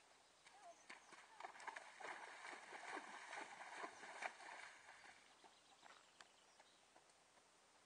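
A horse's hooves splashing through a shallow water jump for about four seconds, starting about a second in, then faint hoofbeats on sand.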